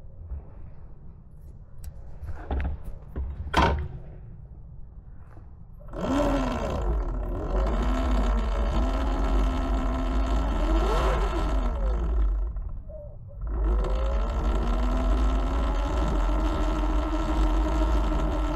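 Eride Pro SS electric dirt bike's motor and drivetrain whining under throttle, the whine rising and falling with speed over wind rumble on the microphone, in two runs with a short let-off between them; the rider wonders whether a damaged jackshaft is behind the drivetrain noise. Before the first run come a few sharp knocks.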